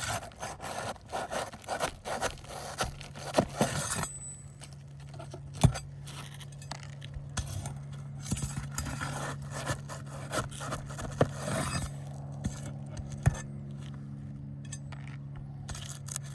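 Sharp flat pry bar scraping under asphalt shingles, breaking their seal strips and working the nails loose. Busy scraping and clicking over the first few seconds, then scattered sharp knocks.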